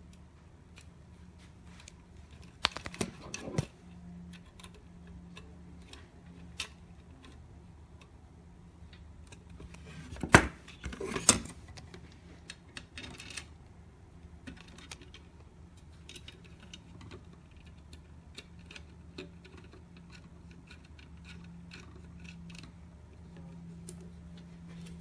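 Hand assembly of a filament spool stand with a screw and a small hand tool: small metal and plastic parts clicking and clattering, with a few louder knocks about three seconds in and two sharp clacks a second apart around ten seconds in.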